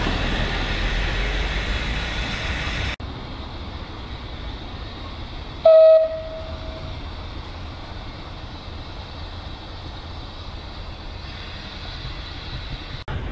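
Steam locomotive running, rumble-heavy, cut off suddenly about three seconds in. About six seconds in comes one loud, short single-pitched toot from a train, over a quieter steady train sound.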